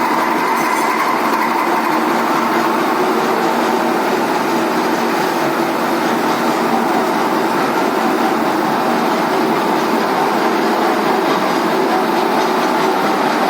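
Lathe with a milling attachment running and cutting a triple-start thread on a shaft: a loud, steady machining noise with a few constant tones over it.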